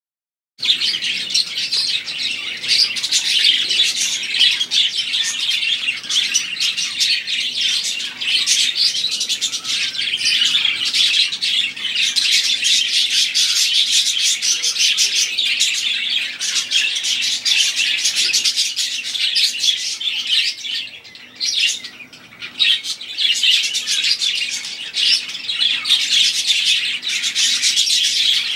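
Several budgerigars chattering and warbling in a dense, continuous stream of quick chirps. The chatter briefly thins and quietens about three-quarters of the way through.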